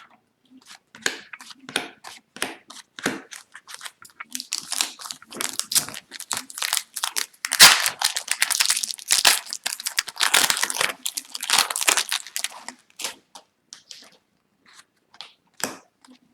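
Foil wrapper of a hockey card pack crinkling and tearing as it is opened and handled. The crackle thickens and grows loudest from about four seconds in to about twelve, with scattered light crackles and clicks before and after.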